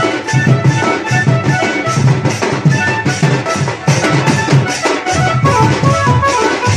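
Loud band-party music over a truck-mounted loudspeaker stack: a steady, driving drum beat under a reedy keyboard-style melody.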